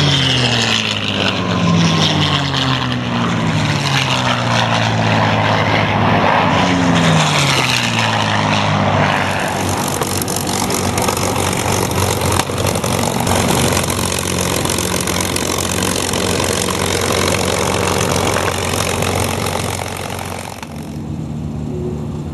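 Several piston-engined warbird fighters making low passes one after another, each engine note dropping in pitch as it goes by. Over the second half the propeller aircraft settle into a steady drone.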